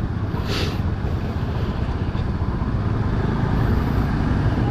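Steady low rumble of a Honda Scoopy scooter ridden slowly in traffic, its engine mixed with wind noise on the helmet camera's microphone, with a brief hiss about half a second in.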